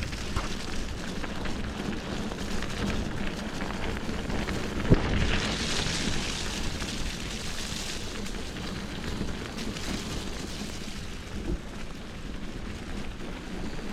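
Bicycle rolling along a forest trail: a steady rumble and hiss of tyres and rattling bike. A sharp knock comes about five seconds in, followed by a few seconds of louder hiss, and a smaller knock near the end.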